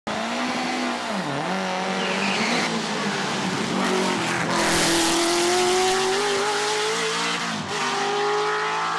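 Racing car engine at high revs. Its pitch dips briefly about a second in, then climbs steadily as the car accelerates, with a short rush of noise around the middle.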